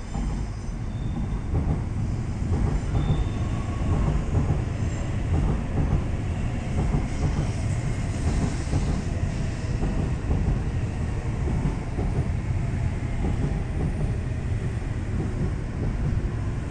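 Tōkaidō Shinkansen bullet train pulling into the station and rolling past close by, a steady rumble of wheels and running gear on the rails.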